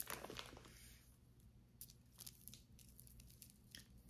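Faint rustling and scattered light clicks of a tangled necklace being handled and worked loose by hand, densest in the first half second, then a few isolated clicks.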